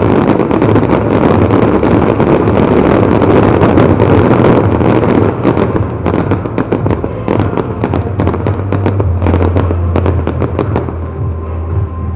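Fireworks going off: a dense rushing hiss with rapid crackles and bangs for the first five seconds or so, then thinning to more separate bangs and crackles, over a steady low drone.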